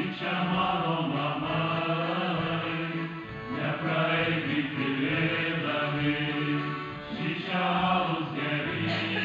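Male vocal ensemble of five men singing a song in harmony, with an accordion accompanying them.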